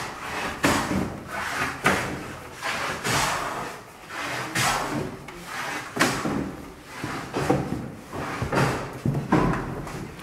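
Hand plane being pushed along a wooden board in repeated strokes, each a short rasping scrape, about one every second or so.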